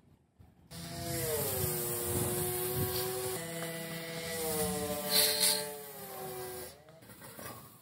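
A pressure washer runs while its water jet hisses against a metal motorcycle frame. The machine's hum starts about a second in and falls in pitch, jumps back up about halfway through before falling again, and cuts off near the end.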